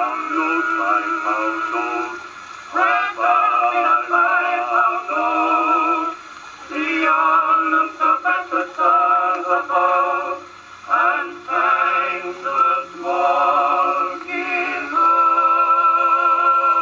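Male vocal quartet singing from a 1908 acoustic-era Victor 78 rpm disc, played on a 1914 Victrola VV-IV wind-up phonograph: a thin sound with little bass, phrases broken by short pauses, and a long held chord near the end.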